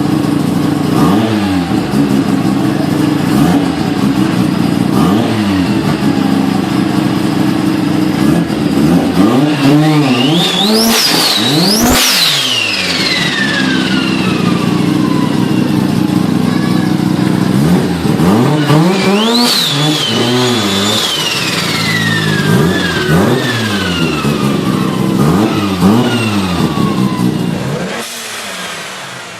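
Turbocharged car engine revved repeatedly in short blips. Twice a high turbo whistle climbs steeply as the turbo spools up, then winds down slowly after the throttle closes.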